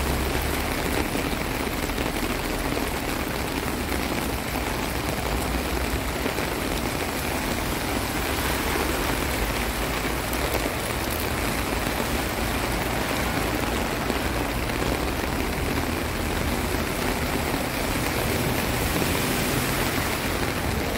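Heavy rain pouring steadily onto a flooded street, an even hiss that does not let up, with a low rumble underneath.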